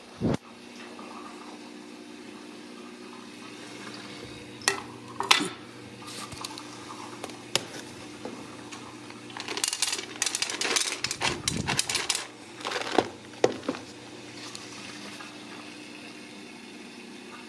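Kittens scuffling and scratching at a rug and wooden floor as they play: scattered clicks and scratches, with a dense flurry of scratching about ten seconds in, over a steady low hum.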